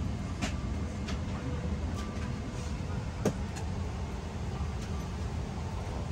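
Steady low hum of a Boeing 777-300ER's cabin air while parked at the gate, with a few light clicks and one sharper plastic click about three seconds in as a storage compartment door beside the seat is unlatched and swung open.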